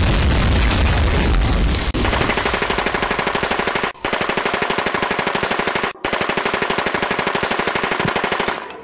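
Automatic machine-gun fire sound effect laid over the picture. It opens with a dense, booming burst, then turns into a rapid, even rattle of shots. The rattle breaks off briefly twice and stops abruptly near the end.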